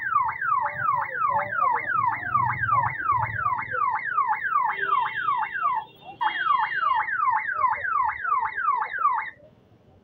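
Aftermarket police-style electronic siren on an electric scooter, sounding in rapid falling sweeps, three to four a second. A steady higher tone sounds over it twice, and the siren breaks off for a moment about six seconds in, then stops about nine seconds in.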